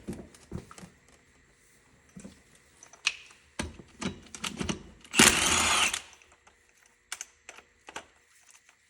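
Metal tools and sockets clicking and knocking as they are handled, with one loud burst of a power tool just under a second long about five seconds in.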